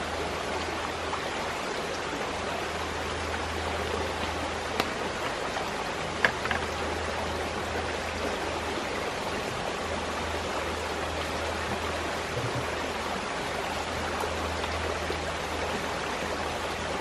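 Shallow creek running over rocks, a steady rush of water. Two short, sharp clicks stand out about five and six and a half seconds in.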